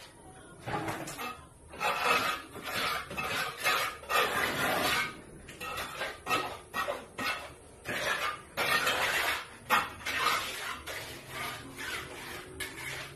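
Metal trowel scraping and clinking, a run of rough scrapes each lasting up to about a second, with short gaps between.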